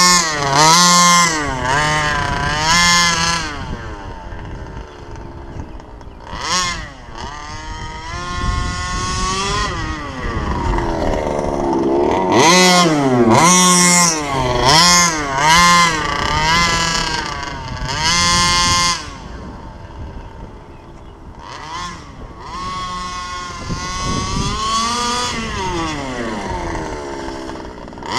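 SCZ 29cc reed-valve two-stroke engine of a gas-powered HPI Baja RC car, revving up and down again and again as it is driven. It is loudest near the start and through the middle, and fades between bursts as the car moves off.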